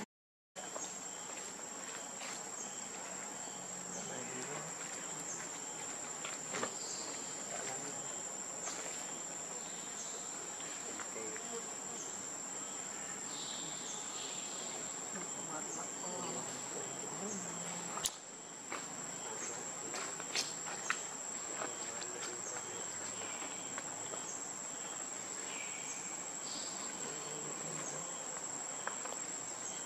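Insect chorus: a steady, high-pitched buzz that cuts in just after a brief dropout at the start, with scattered small clicks over it.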